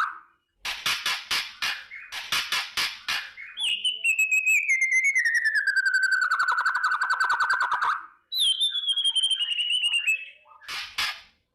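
White-rumped shama (murai batu) singing: rapid rattling click runs (kretekan), then a long whistled note that falls slowly over about four seconds, a shorter falling note, and another short rattle near the end.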